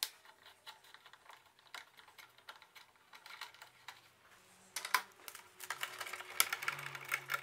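Phillips screwdriver turning a small screw out of a scooter's plastic handlebar cover: a run of faint, irregular clicks and ticks. The clicking grows denser about five seconds in.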